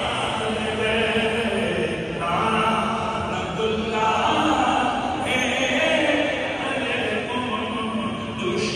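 Voices chanting a devotional call together in long drawn-out phrases, each held for a second or two.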